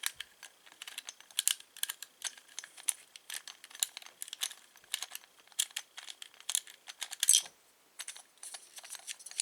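Small Phillips screwdriver driving screws into a Schlage keyed door knob: irregular light metal clicks and scrapes, several a second, as the tip turns in the screw heads and the metal parts knock together.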